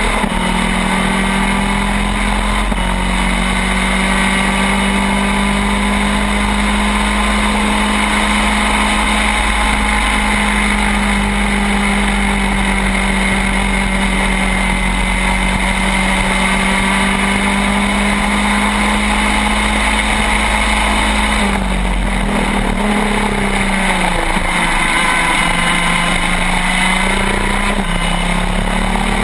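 Shifter kart's two-stroke racing engine running hard at high revs, its note held nearly steady for a long stretch. About three-quarters of the way through, the revs drop away, rise and fall for several seconds, then pick up again near the end.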